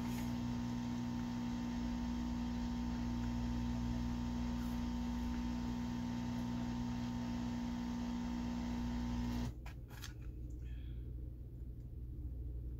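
Steady electrical hum made of several fixed tones, cutting off suddenly about three-quarters of the way through with a couple of sharp clicks.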